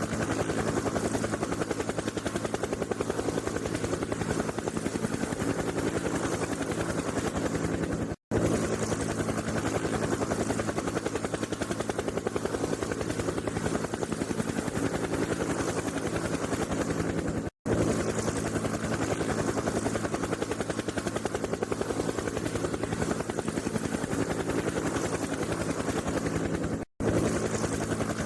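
Helicopter rotor sound: steady, rapid chopping over a low engine hum, cutting out briefly three times at even spacing, about every nine seconds.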